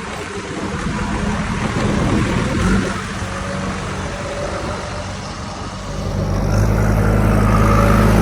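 Heavy diesel engine of a backhoe loader or tractor running steadily, revved up and louder from about six seconds in.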